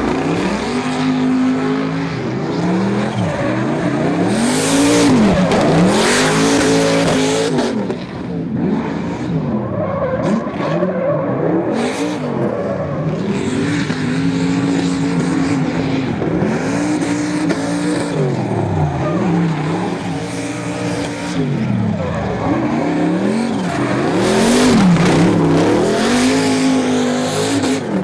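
Turbocharged GM LS2 6.2 L V8 drift car with a screamer pipe exiting through the bonnet, its revs rising and falling again and again as it is driven on the throttle. Bursts of tyre squeal come and go with the revving.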